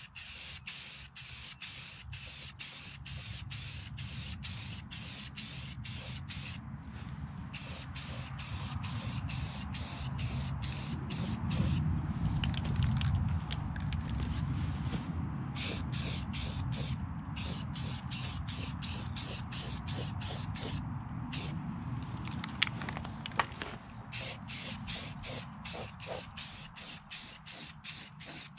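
Compressed-air spray gun hissing in rapid, even pulses, about three a second, over a steady low running sound.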